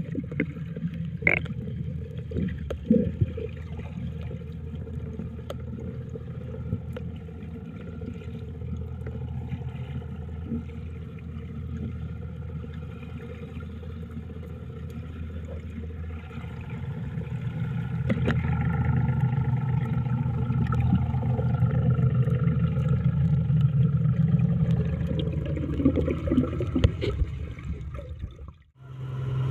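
Muffled underwater sound of water washing around the camera, under a boat engine's steady low drone carried through the water. A few knocks come in the first few seconds, and the drone grows louder a little over halfway through.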